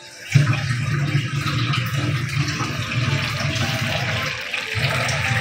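Pot of lobia pulao (rice and beans in its cooking water) boiling hard: steady bubbling and hissing with a low rumble underneath, beginning a moment in.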